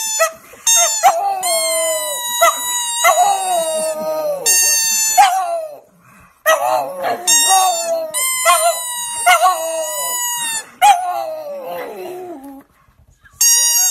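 A pug howling in long, wavering calls. There are two bouts, with a short break about six seconds in.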